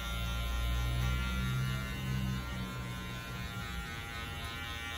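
Electric hair clipper running with a steady buzz, worked over a comb at the nape of the neck to cut a tapered neckline. The low hum is stronger for the first couple of seconds, then eases.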